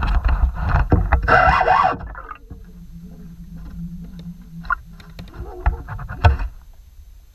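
Noisy water splashing and handling noise as a hooked catfish is fought on the line right beside a kayak, loudest in the first two seconds. A steady low hum follows for about two seconds, and a couple of sharp knocks come near the end.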